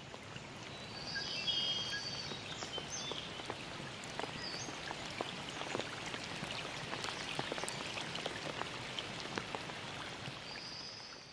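Rainforest ambience: rain falling and dripping on leaves in a steady hiss with many small sharp drops, and a few high chirping calls near the start and near the end. It fades out at the end.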